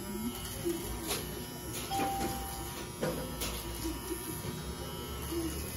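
Electric hair clippers running steadily as they are passed over a man's head, cutting his hair.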